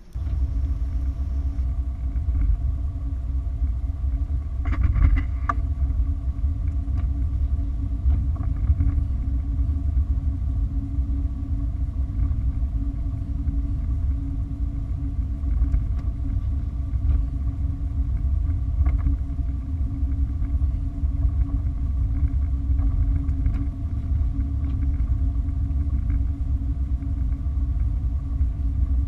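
A car driving: a steady low rumble of engine and road noise with a faint steady hum, and a short clatter of clicks about five seconds in.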